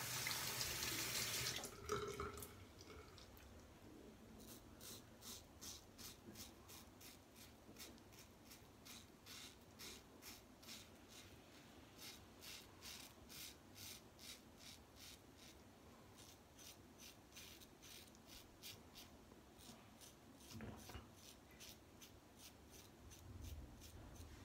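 A tap runs for about a second and a half at the start, rinsing the razor. Then a Gillette Fatboy double-edge safety razor with a Treet Platinum blade scrapes through lathered stubble in quick short strokes, about two or three a second.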